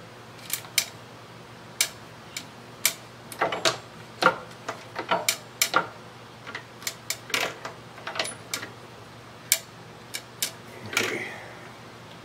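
Scattered sharp clicks and light taps at irregular intervals, about a dozen and a half of them, over a faint steady low hum.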